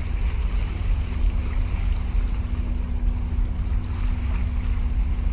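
Wind buffeting the microphone and sea water washing against concrete breakwater blocks, under a steady low drone from a large container ship's engines as it passes.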